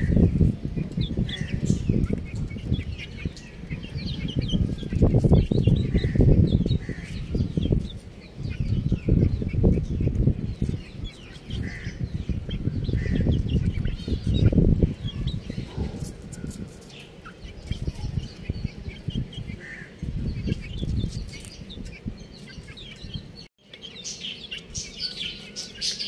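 Baby chicks peeping in short, scattered chirps over a loud, low rumbling noise that is the loudest sound. After a brief dropout about three-quarters through, the peeping comes quicker and higher.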